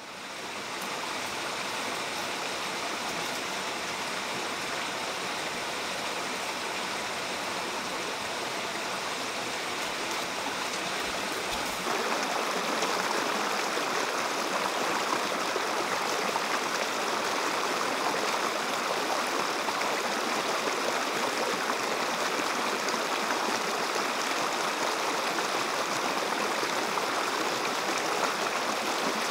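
Rushing water of a shallow rocky river running over small cascades, a steady noise that gets louder about twelve seconds in.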